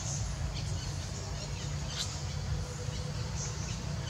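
Outdoor ambience under a forest canopy: a steady low rumble with faint, short high chirps and ticks scattered through it.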